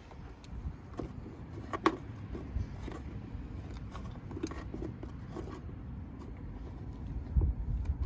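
Scattered clicks and light scrapes of hands working a wiring connector and feeding a rear ABS sensor cable through a tight opening, with one sharper click about two seconds in. A steady low rumble sits underneath.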